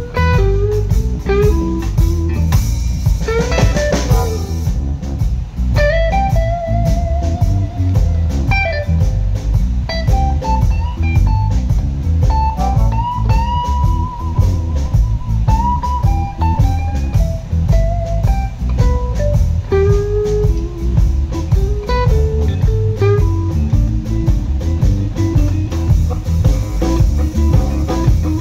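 Live electric blues band playing an instrumental break: an electric guitar lead with bent notes and vibrato over electric bass and a drum kit.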